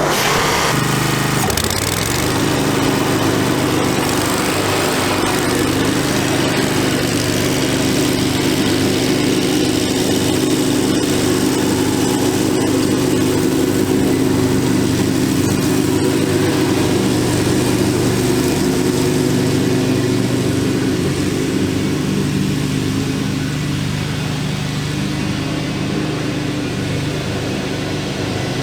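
Zero-turn riding mower engine running steadily under load while mowing, getting a little quieter near the end.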